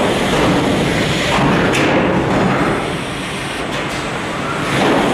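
Steady car-assembly-line machinery noise from an industrial robot with a vacuum gripper handling a body panel, with short sharp hisses a little under two seconds in and again near four seconds.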